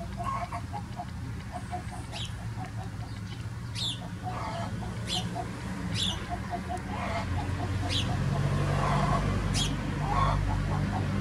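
Chickens clucking softly in a quick, steady run of short low notes, with a few sharp high chirps scattered through. A low rumble builds underneath in the second half.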